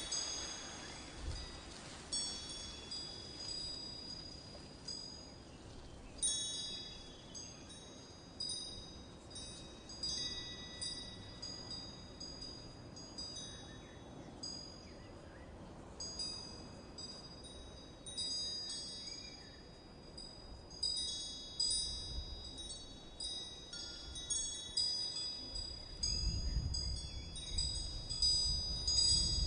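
Wind chimes ringing in irregular, overlapping high-pitched strikes that fade out. A low rumble comes in near the end.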